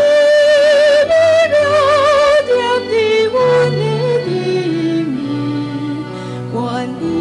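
A woman singing a worship hymn into a handheld microphone, holding notes with vibrato over sustained instrumental accompaniment and a bass line.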